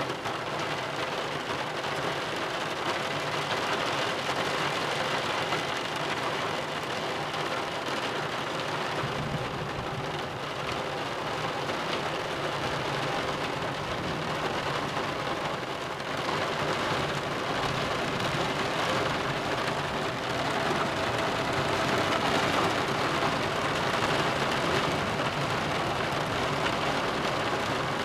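Steady heavy rain in a thunderstorm, pattering on surfaces. Low rumbling thunder sets in about nine seconds in and grows louder after about sixteen seconds.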